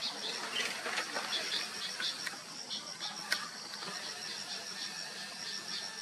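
Insects chirping steadily, a fast, even pulsing high chirp, with fainter short chirps scattered through and a single sharp click about three seconds in.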